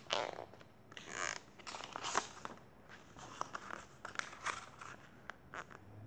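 Pages of a picture book being turned and handled close to the microphone: a string of short papery rustles, scrapes and light clicks.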